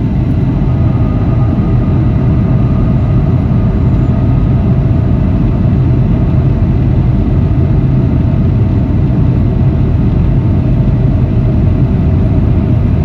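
Steady rumble of airflow and engines on board a Boeing 757 on final approach, even and unbroken, with a faint whine above the low drone.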